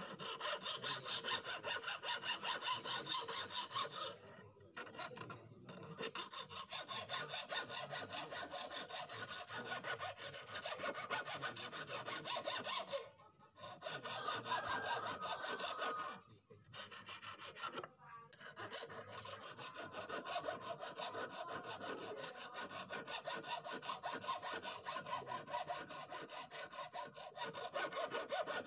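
Hand file rasping back and forth across the edge of an old, rusty steel knife blade, in rapid, even strokes with a few brief pauses.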